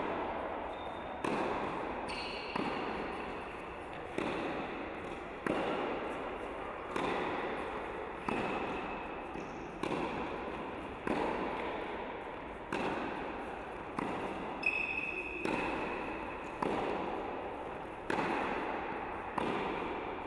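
Tennis ball struck by racket in a steady rally, about one hit every second and a half. Each crack rings on and dies away in the echo of a large indoor tennis hall.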